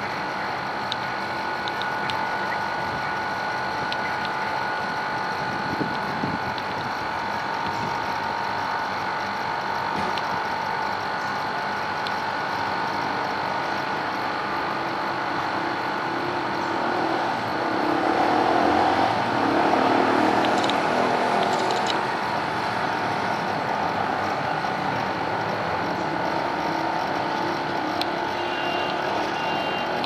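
Steady city background noise of traffic and machinery with a continuous hum, swelling for a few seconds past the middle.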